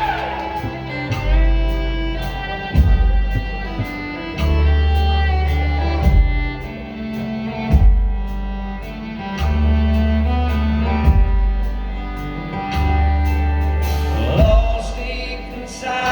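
Live acoustic band playing an instrumental break: a fiddle carrying the melody over guitar, with long held low bass notes underneath.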